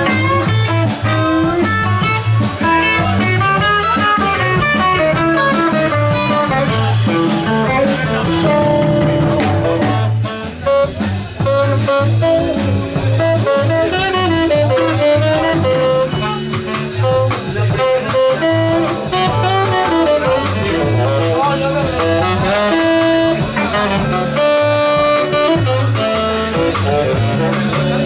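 A live blues band playing an instrumental break: a tenor saxophone plays a melodic line over electric guitar, electric bass and drums.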